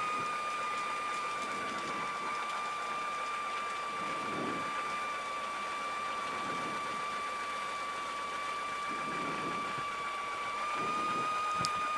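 Light aircraft's piston engine idling steadily, with a constant high whine that rises slightly near the end.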